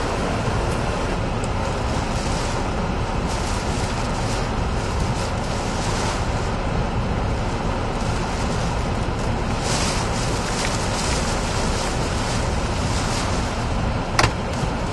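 Hurricane-force wind and driving rain rushing steadily around a vehicle, mixed with the vehicle's own engine and road noise. A single sharp knock comes near the end.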